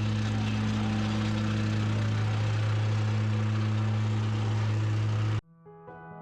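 An engine running steadily at constant speed, a low hum over a hiss. It cuts off abruptly about five seconds in, leaving soft piano music.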